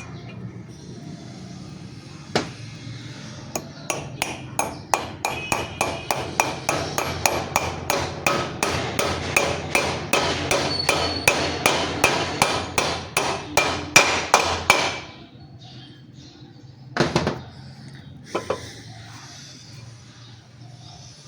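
Hammer blows on metal during a wheel bearing replacement: a steady run of about three strikes a second, each ringing, for roughly twelve seconds. Two more single knocks follow near the end.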